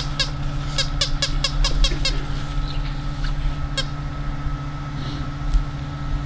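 A small bird chirping over a steady low hum: quick high chirps about four a second for the first two seconds, then a few scattered chirps.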